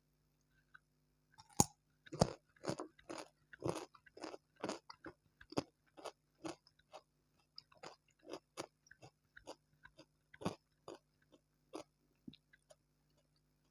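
Close-miked chewing of crunchy food: a sharp bite about a second and a half in, then a long run of crisp crunches about two a second, thinning out near the end.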